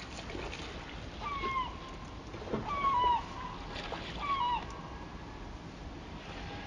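An animal making four short mewing calls, each holding a steady pitch and then dropping at the end, over a steady background hiss.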